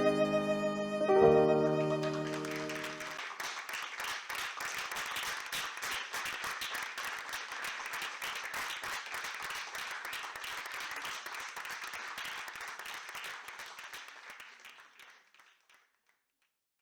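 Recorded music with a held violin chord ends about three seconds in, followed by audience applause that gradually fades out.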